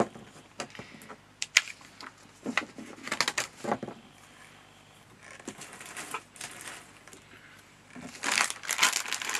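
Paper and card being handled on a desk: rustling and crinkling with scattered light taps and clicks, growing busier near the end.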